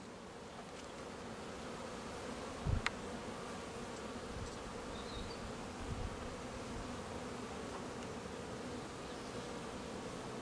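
Honeybees buzzing on a comb frame lifted out of the hive: a steady, even hum of many bees. A soft low thump comes about three seconds in and another around six seconds.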